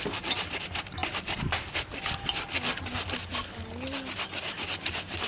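Peeled raw cassava root rasping on a hand grater, scraped back and forth in rapid, regular strokes as it is shredded.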